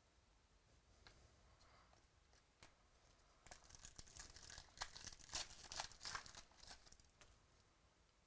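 Wrapper of a trading-card pack being torn open and crinkled. A few faint clicks come first, then a dense crackling tear runs for about three and a half seconds, starting about three and a half seconds in.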